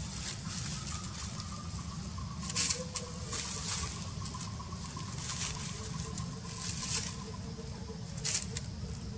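Dry grass and leaves rustling in short crisp bursts as a newborn macaque squirms on them, the loudest about two and a half seconds in and again near the end, over a steady low rumble.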